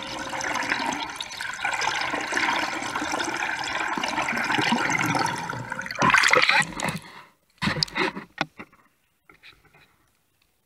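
Water rushing and bubbling past an underwater camera housing alongside a moving boat, surging louder for about a second as the camera comes up through the surface, then cutting off to a few scattered splashes and drips.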